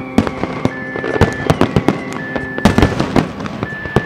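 Aerial fireworks display: many shells bursting in rapid succession, sharp bangs mixed with crackling.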